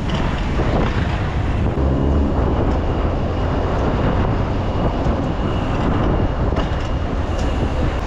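Wind buffeting the microphone and tyre and road noise from a bicycle being ridden through city streets, a steady loud rush.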